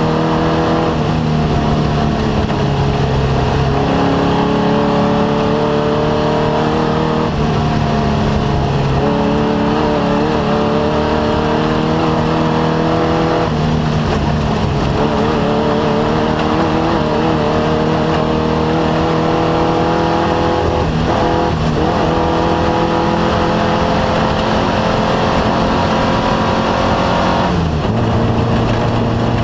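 Off-road race vehicle's engine running hard under steady noise, its pitch holding for a few seconds at a time, then stepping up or down as the revs change.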